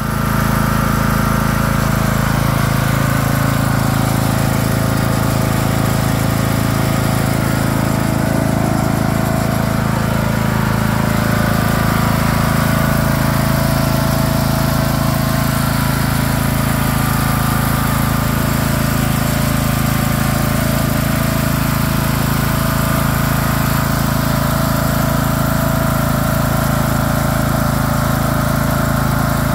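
Craftsman LT3000 lawn tractor engine running steadily, with a slight change in its tone about twelve seconds in.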